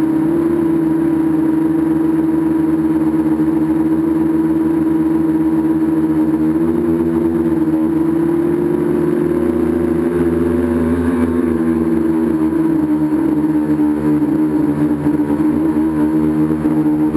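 Tricopter's three electric motors and propellers running in flight, heard from on board: a loud, steady whine of several tones whose pitch drifts up a little around the middle and settles back with the throttle.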